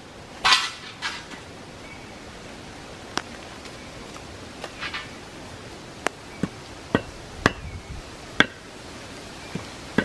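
Sticks of firewood knocked and snapped while being fed into a small campfire: a couple of rustling, cracking bursts near the start, then a string of sharp single wooden knocks, most of them in the second half.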